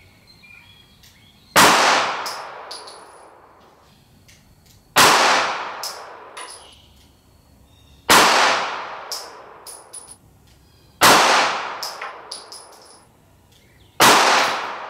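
Five 9mm handgun shots of 135-grain Federal Hydra-Shok DEEP, evenly spaced about three seconds apart, each with a long echoing decay. A few light metallic pings follow each shot.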